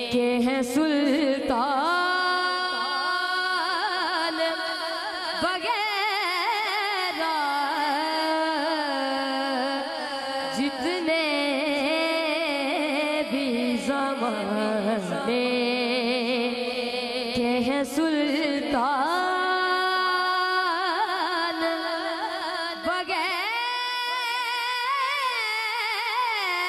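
A boy's voice singing a naat, an Urdu devotional poem, into a microphone: long drawn-out notes with wavering ornamental turns and glides between them.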